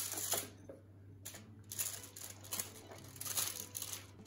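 Bread slices being flipped on a foil-lined baking tray and brushed with olive oil using a silicone pastry brush: irregular scratchy brushing strokes and rustling of the foil.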